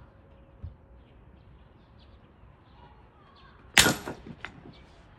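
An axe strikes a log of firewood once with a loud, sharp crack about four seconds in, followed by a few smaller knocks as the split pieces fall.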